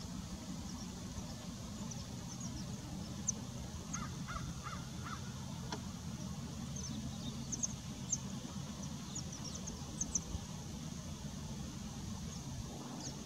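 American pipits giving short, thin, high call notes scattered throughout. About four seconds in, another bird gives a quick series of four or five lower calls. A steady low rumble runs underneath.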